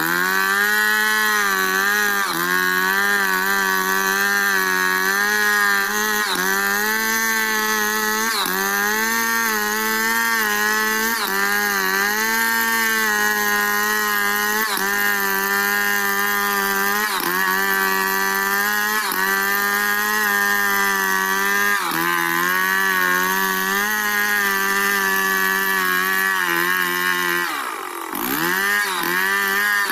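Stihl 070 two-stroke chainsaw running at full throttle while ripping a log lengthwise into boards, its pitch sagging slightly under load every couple of seconds. Near the end the throttle eases off briefly and the engine revs back up.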